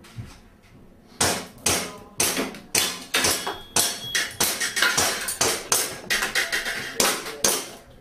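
Airsoft pistol firing a rapid string of shots starting about a second in, sharp cracks two to four a second, mixed with the knocks of BBs striking small steel targets and knocking them down.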